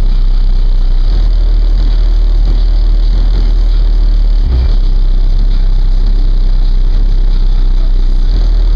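Car-audio subwoofers playing very loud, deep bass: a steady low drone that grows stronger about a second in, with a brief jump about four and a half seconds in, and eases slightly near the end.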